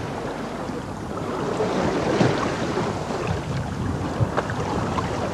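Wind buffeting the microphone and sea water rushing along the hull of a sailing lugger under way, with a few light knocks.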